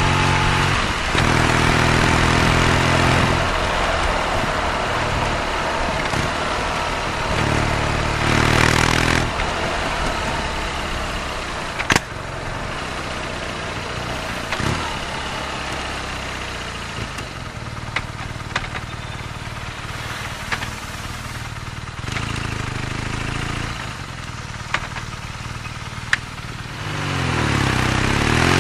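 BMW R nineT's air/oil-cooled boxer twin engine, blipped briefly twice early on, then running at a steady low speed for most of the time with a few sharp clicks over it. Near the end it revs up, with rising pitch, as the bike accelerates.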